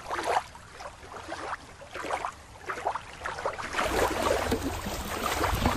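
Water splashing and sloshing in short, irregular bursts.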